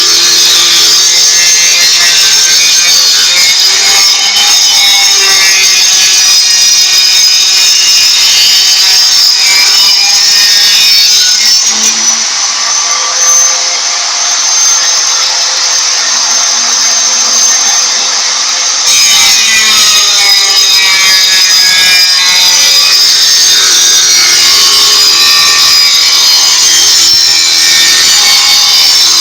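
Homemade floor-tile cutting machine running: its motor-driven blade cutting through a floor tile with a loud, continuous high-pitched whine that rises and falls in pitch as the cut loads the blade. For several seconds in the middle the sound turns thinner, then returns.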